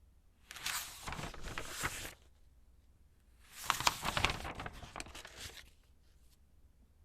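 Magazine pages being turned by hand, glossy paper rustling and flapping twice, the second turn louder and longer, with a few faint paper crackles after it.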